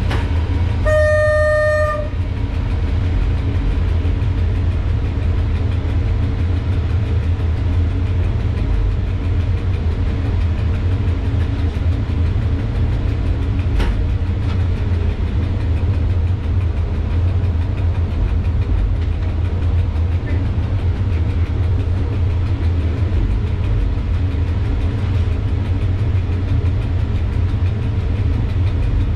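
EU07 electric locomotive running along the track, a steady low rumble heard from inside the cab, with its horn sounding one steady tone for about a second near the start. A single sharp click comes about halfway through.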